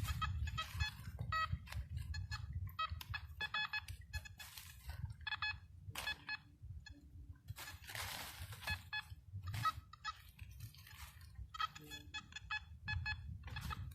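Metal detector sounding many short, pitched beeps in quick irregular succession as the search coil is swept over buried metal targets. There is a brief rustling noise about eight seconds in.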